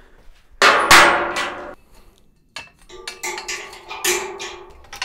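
Ratchet-strap metal hardware clanging on a steel workbench top: one loud strike about half a second in that rings on for about a second, then a run of lighter metallic clicks and knocks as the strap is fitted and set.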